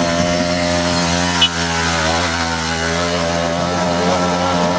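Small motorcycle engine running at steady high revs as the bike climbs a steep hill, a constant buzzing drone whose pitch hardly changes.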